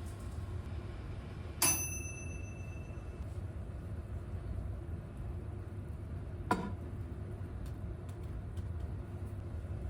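Steady low hum of a kitchen range hood fan, with one bright metallic clink that rings for about a second, a little under two seconds in, and a short, duller tap about six and a half seconds in.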